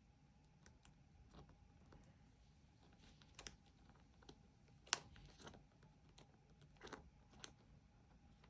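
Faint, scattered clicks and taps from small objects being handled, the sharpest about five seconds in.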